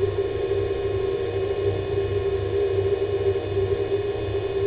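Electric scooter's 48 V, 1500 W unbranded hub motor running at a steady speed with a steady electric whine, on a test run after being wired in.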